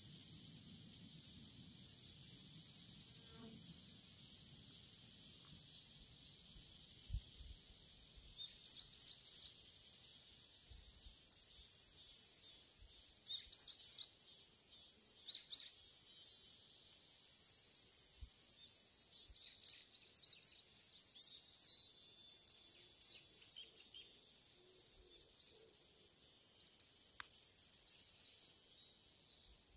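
Faint, steady high-pitched chorus of insects singing outdoors, with short bird chirps scattered through the middle and a few soft knocks.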